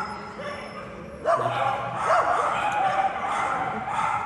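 Giant Schnauzer K-9 yipping and whining in a loud, high-pitched run of cries that starts about a second in.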